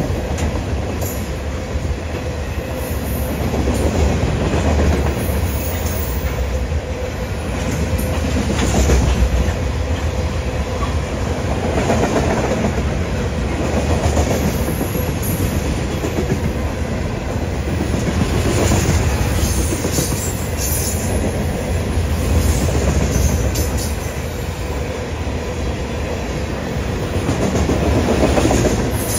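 Freight train of covered hopper cars from a sand train rolling past at close range: a steady low rumble of steel wheels on rail with clicking over the rail joints. The loudness rises and falls every few seconds as the cars go by.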